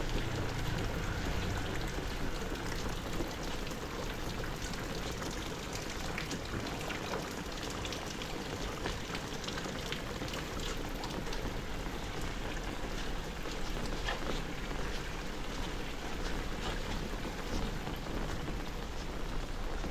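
Heavy rain falling steadily, a dense patter of drops hitting hard surfaces.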